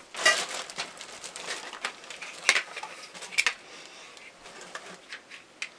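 Plastic connector pieces and chrome metal bars of a garment rack being handled and pushed together: a scatter of sharp clicks and knocks with light rustling between them, the loudest about a quarter second in.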